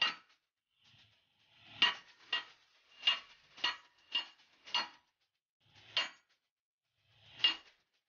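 Hand wrenches clinking on the steel of a hydraulic line fitting on an excavator arm as it is loosened to disconnect the breaker: about nine sharp metallic clinks, unevenly spaced.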